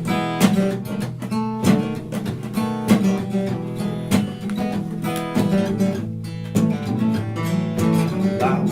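Acoustic guitar being strummed in a steady rhythm.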